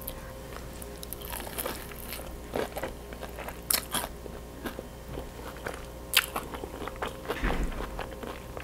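Biting and chewing crisp breaded fried chicken dipped in stretchy cheese: irregular crackly crunches, the sharpest a little under 4 seconds in and about 6 seconds in.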